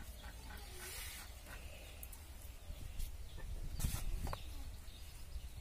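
Hens clucking faintly amid the knocks and rustles of food being handled and vegetables cut. A louder knock comes about four seconds in.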